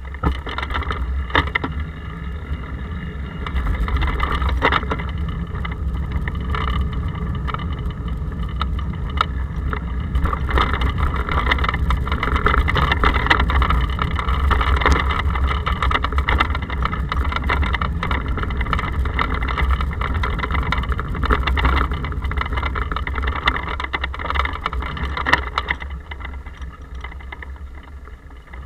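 Bicycle riding along the road at night, heard through a handlebar-mounted action camera's case: a steady, muffled low rumble of road vibration, broken by frequent knocks and rattles from bumps. It starts suddenly and eases off near the end.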